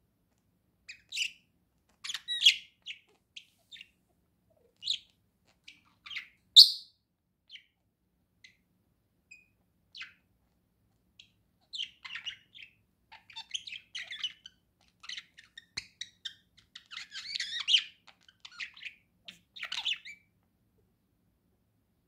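Male budgerigar chirping and warbling: scattered short, high chirps in the first half, then a denser run of chattering warble in the second half that stops shortly before the end.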